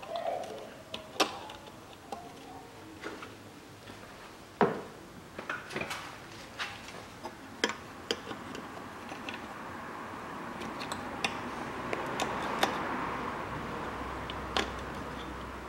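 Irregular small clicks and taps of plastic and metal parts as fingers work the hinge of a removed Toyota Harrier fuel filler door, the sharpest click a little under five seconds in. In the second half a broad rushing noise with a low hum swells and then fades.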